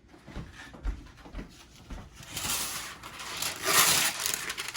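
A few light knocks, then parchment paper rustling as it is pulled out and handled, loudest near the end.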